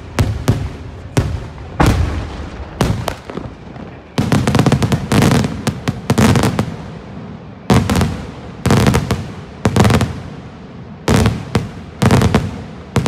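Daytime fireworks: aerial shells bursting overhead in a rapid series of loud bangs and reports. There are single bangs at first, a dense run of many bangs from about four to seven seconds in, then further clusters of bangs.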